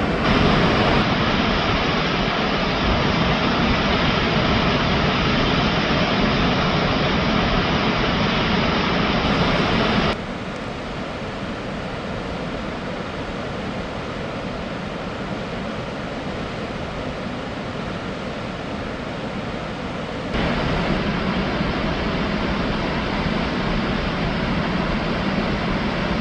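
The steady rushing roar of a large waterfall, Wapta Falls on the Beaverfoot River. It drops abruptly to a softer level about ten seconds in and jumps back up about twenty seconds in.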